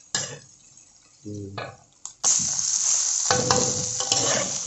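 Chicken feet in masala frying in a kadai: loud sizzling that starts suddenly about halfway through, with the clicks and scrapes of a spatula stirring them.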